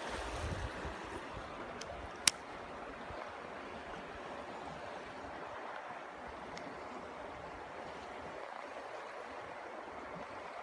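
Creek water running steadily, with a single sharp click about two seconds in.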